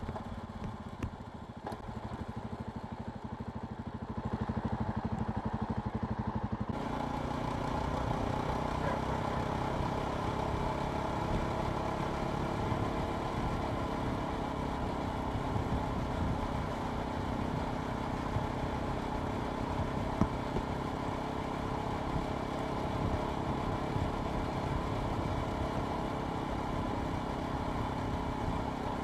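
Jawa Perak motorcycle engine running as it is ridden. About seven seconds in the sound changes suddenly to a fuller, steady riding sound with added wind and road hiss.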